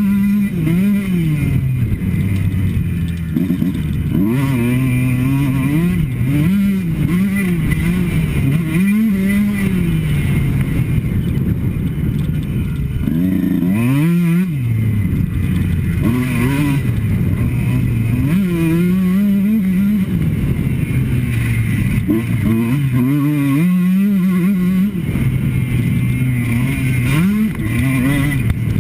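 Kawasaki KX motocross bike engine revving hard and dropping back again and again as the rider accelerates, shifts and rolls off around the track, its pitch climbing and falling every second or two. Heard from a helmet-mounted camera.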